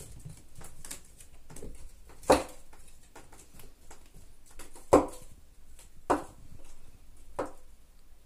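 A pet cat playing, with four short, sharp sounds spaced about one to two and a half seconds apart, the first two the loudest.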